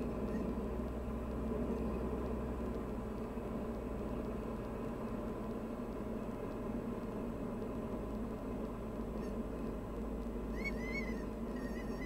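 Steady drone of the Diamond DA40's engine and propeller inside the cabin, at reduced power during the landing flare. From about ten seconds in, a high, wavering tone chirps on and off several times: the stall warning horn sounding as the plane slows just before touchdown.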